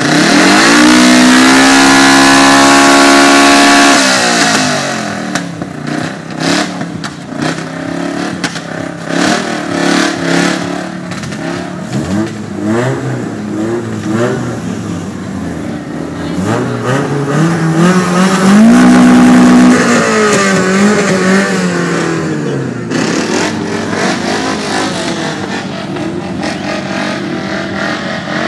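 Tuned car engine revved hard through a loud aftermarket exhaust: it climbs quickly and holds high revs for about four seconds, then drops back crackling and popping. A second rev climbs and holds about two-thirds of the way through before falling away.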